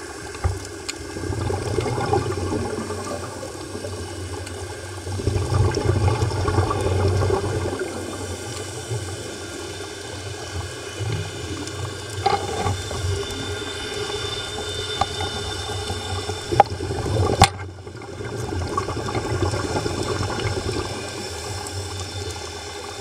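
Underwater recording of a scuba diver's breathing through the regulator: several long bursts of exhaled bubbles gurgling, with quieter stretches between them. Two sharp clicks come about three-quarters of the way through.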